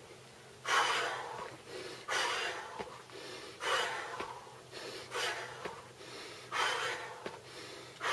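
A woman's forceful exhales through the mouth, one sharp breath as she starts each jump squat, five times about every one and a half seconds, each fading away before the next.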